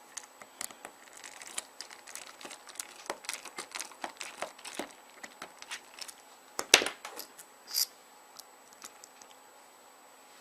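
Irregular small clicks and ticks of a T6 Torx screwdriver and fingers working the small front screws out of a BlackBerry 9650's plastic housing, with one louder knock about seven seconds in and a sharp click just after.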